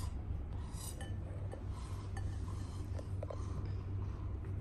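Faint, soft bubbling as air is blown through a plastic straw into a bowl of soapy water, frothing it into foam, over a steady low hum, with a few faint clicks.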